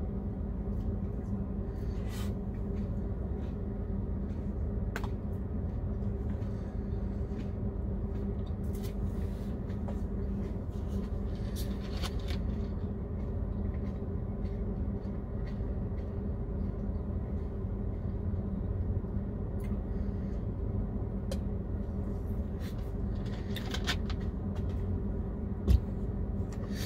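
Steady low hum inside a semi-truck cab, with scattered light clicks and rustles of a plastic fork in a plastic clamshell food container, and one sharp thump near the end.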